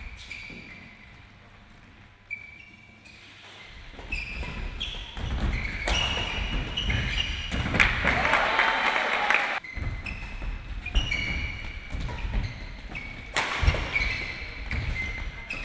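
Badminton doubles play in a reverberant sports hall: shoes squeaking on the court floor, racket hits on the shuttlecock and thuds as players lunge and dive. Spectators burst into noise about six to nine seconds in, around a player's diving save.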